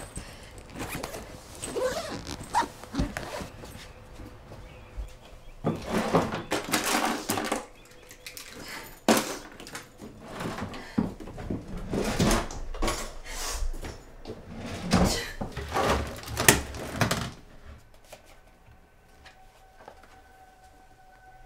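Handling noises of luggage and household things: rustling, soft knocks and thuds as a fabric suitcase and a handbag are moved and packed, and a plastic jug is picked up. After about 18 s the handling stops and a faint steady two-note tone is left.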